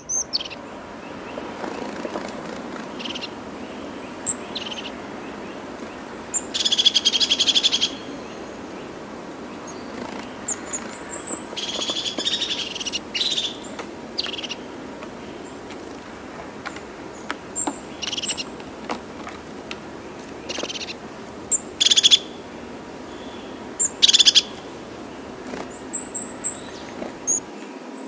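Silver gulls calling: short harsh squawks at irregular intervals, a few lasting up to a second, over a steady low background noise.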